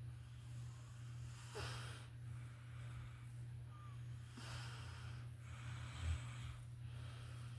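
A dozing woman's slow, heavy, snore-like breaths, one every few seconds, over a steady low hum. A short low thump about six seconds in.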